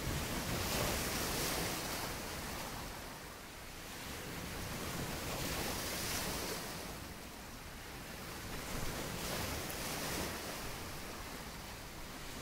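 Ocean waves washing, a rushing noise that swells and fades every few seconds.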